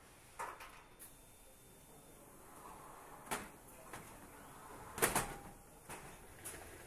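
Scattered short, sharp clicks and knocks from hand work at an engine assembly station, the loudest a quick double knock about five seconds in, over a low steady background.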